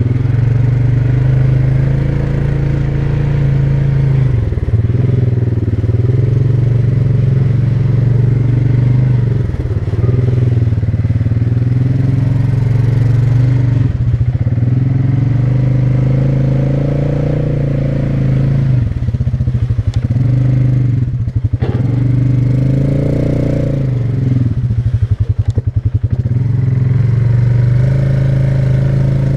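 ATV engine running under throttle at a fairly steady pace, its pitch shifting a little as the throttle changes. The throttle eases off briefly several times in the second half, each time letting the separate firing pulses be heard.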